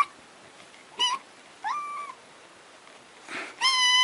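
Domestic cat meowing three times: a short meow about a second in, a rising meow near two seconds, and a long, high, steady meow starting near the end.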